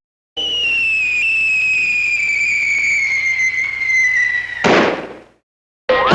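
Cartoon falling-bomb sound effect: a long whistle that slides slowly down in pitch, then a short explosion burst about four and a half seconds in that quickly fades away.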